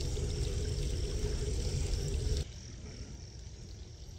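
A low rumble with a steady hum, cut off abruptly about two and a half seconds in. It gives way to quieter outdoor ambience with insects chirping.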